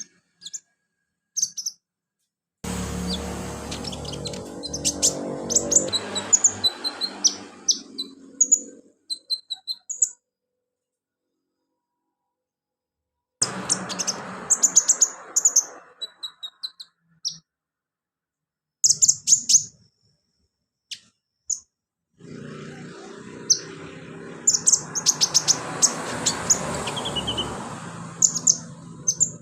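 Sunbird (kolibri/conin) singing energetically: rapid, very high-pitched chirps and short trills. They come in three bursts, each stopping dead into silence, with a low hum underneath while the bird sings.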